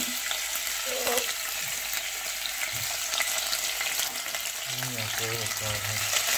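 Chunks of raw meat sizzling in hot olive oil in a stainless steel pot: a steady frying hiss with a crackle of fine pops.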